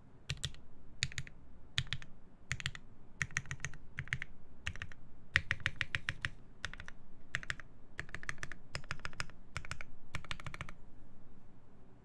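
Mechanical keyboard typing: short clusters of sharp keystrokes on a hineybush TKL One with lubed Marshmallow switches, a half FR4 plate and GMK Taro keycaps. The typing stops about a second before the end.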